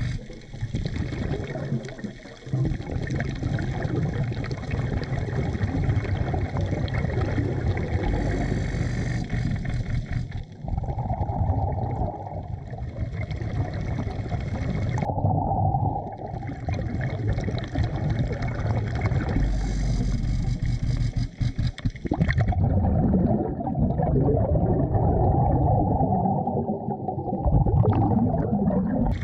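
Underwater sound of a diver breathing through a hose-fed regulator from a BLU3 Nomad surface compressor: rushing breaths and gurgling exhaled bubbles. The sound changes abruptly several times.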